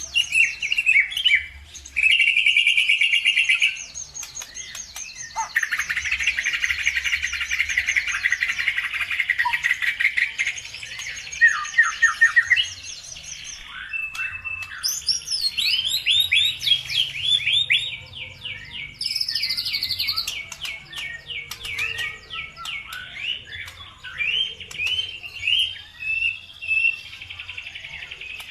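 Songbird singing in long, rapid trills and quick chirping phrases, with a long buzzy trill in the middle and strings of fast sliding notes later on. This is a lure song played to provoke caged birds into singing back.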